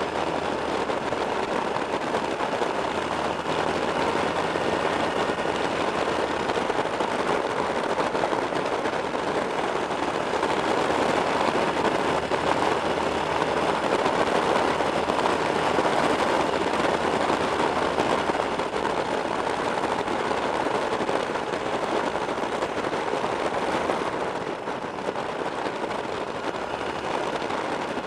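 Wind rushing over the microphone of a camera on a moving motorcycle, with the steady low hum of the bike's engine underneath. It grows a little louder midway and eases slightly near the end.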